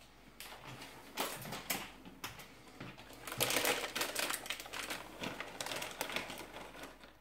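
A hand-twisted spice grinder grinding: a rapid run of crunching clicks, densest about halfway through.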